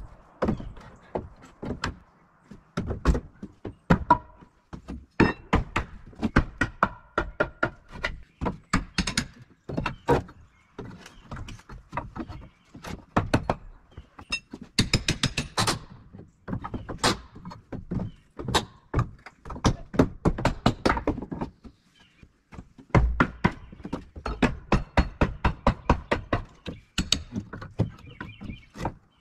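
Carpentry work on wood: a long run of irregular knocks and thuds, at times several a second, with a short lull about 22 seconds in.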